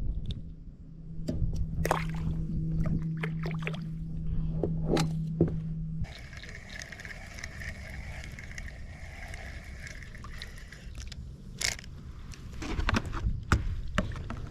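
Knocks, clicks and scrapes against a plastic sit-on-top kayak, with water sloshing against the hull.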